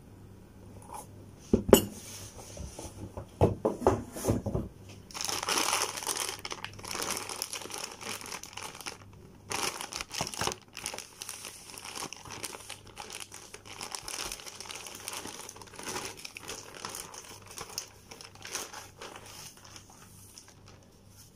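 Plastic packaging crinkling and rustling as a new laptop is unwrapped, with a sharp knock about two seconds in and a cluster of knocks around four seconds.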